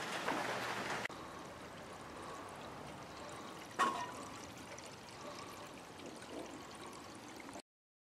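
Faint steady noise, a little louder for the first second, with a single sharp click about four seconds in. The sound cuts off shortly before the end.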